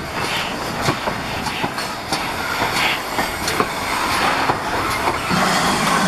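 GWR 28xx class 2-8-0 steam locomotive No. 2807 rolling slowly past, its wheels and coupling rods giving irregular clicks and clanks. About five seconds in, a steady hiss of steam comes up.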